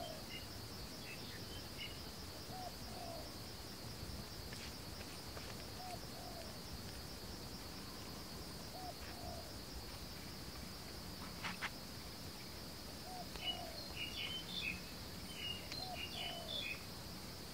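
Forest ambience: a steady, pulsing high insect drone, with a bird giving a short, low two-note call about every three seconds. Near the end, small birds chirp higher and more busily.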